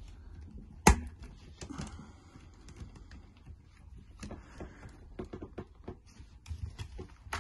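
One sharp plastic click about a second in, then a run of small irregular clicks and taps: the plastic ball cups of RC car rear shock absorbers being pressed and snapped onto the chassis ball connectors.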